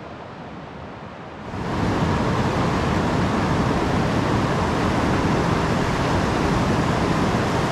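River rapids rushing over and around boulders, a steady full hiss of whitewater. For the first second and a half it is fainter, then it comes in much louder and stays even.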